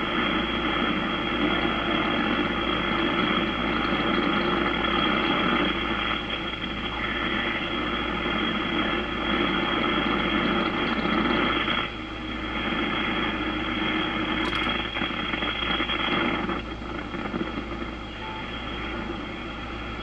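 Icom IC-746Pro HF transceiver's receiver hiss and static through its speaker in USB as the dial is tuned across a band with almost no signals, with a few faint steady whistles. The bands are in very poor condition. The noise changes abruptly about 12 seconds in and again about 16 seconds in.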